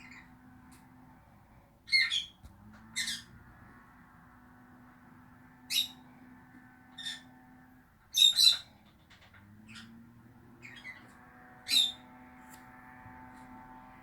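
Pet lovebirds giving short, shrill squawking calls at irregular intervals, seven or so in all, the loudest a quick double call about eight seconds in.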